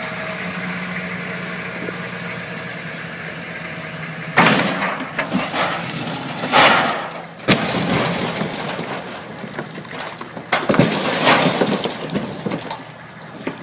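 An engine idling with a steady hum, then, about four seconds in, loud crashing and cracking with several sharp knocks as a sailboat topples off its boat trailer onto its side.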